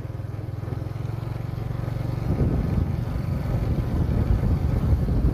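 Motorbike engine running as the bike rides along, with wind on the microphone. An even low engine note for the first two seconds or so, then a rougher, slightly louder rumble.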